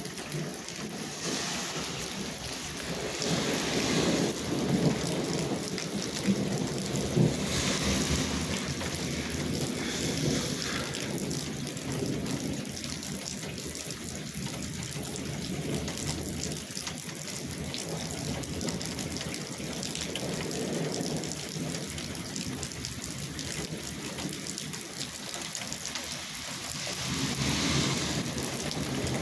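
Steady rain falling, an even hiss of drops on the ground and surfaces.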